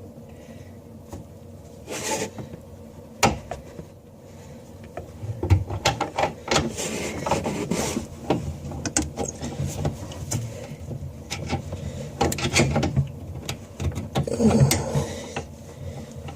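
Irregular metallic clicks, knocks and scrapes of a basin wrench being fitted and worked on a tap's mounting nut under a bathroom sink.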